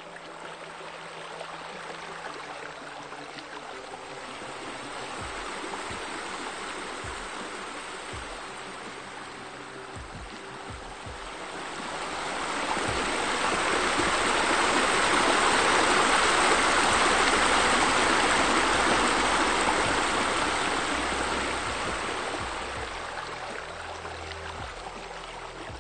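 Rushing water of a rock waterfall spilling into a pool, growing louder about halfway through, at its loudest for several seconds, then fading away, with soft background music underneath.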